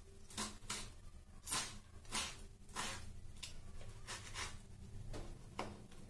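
Kitchen knife slicing through a tomato onto a wooden chopping board: a series of light knife taps, about ten strokes at roughly two a second.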